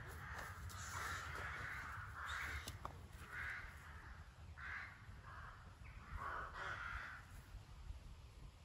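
Crows cawing in the background: a series of short, hoarse caws, roughly one a second, over a low steady rumble.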